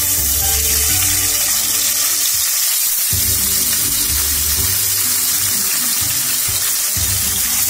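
Pieces of fish frying in hot mustard oil in a kadai, a loud, steady sizzle. Soft background music plays underneath.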